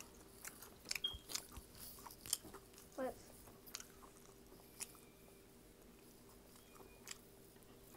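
Close-miked eating sounds: chewing and biting with scattered small crisp clicks and crunches, with a short hummed 'mm' about three seconds in.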